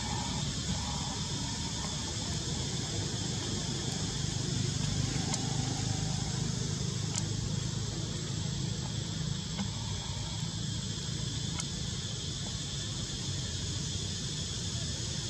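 Steady outdoor ambience of a continuous high insect chorus, with a low rumble underneath and a few faint clicks.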